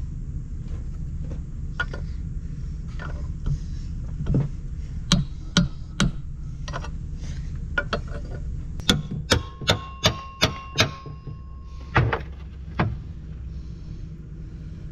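Sharp metallic knocks and taps on a cast-iron corn head gearbox housing as it is being split apart, some ringing briefly. A quick run of about six strikes comes around two-thirds of the way through. A steady low rumble runs underneath.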